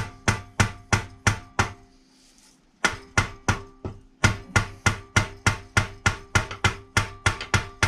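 A mallet beating on a seized blade boss on the crankshaft of a Briggs & Stratton Quantum mower engine, about four sharp blows a second, to shock it loose. The engine casting rings faintly under each blow. The blows stop for about a second near two seconds in, then carry on at the same pace.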